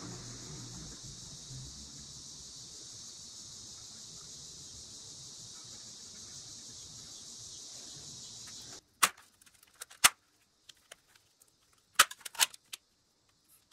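A steady hiss that cuts off abruptly about nine seconds in. It is followed by several sharp plastic clicks and crackles as a clear plastic sheet is pressed down over a PVC mold cup, with a close group of them near the end.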